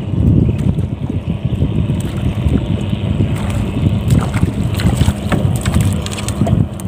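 Wind buffeting the microphone in a gusty low rumble, with a few light ticks and taps in the second half.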